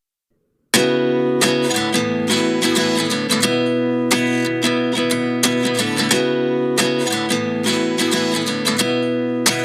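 Background music: acoustic guitar strumming chords in a steady rhythm, starting about a second in, before any singing.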